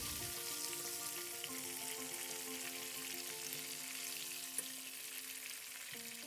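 Hot oil sizzling steadily as bone-in chicken pieces, green chillies and curry leaves deep-fry in a wok. Soft background music with long held notes plays under it.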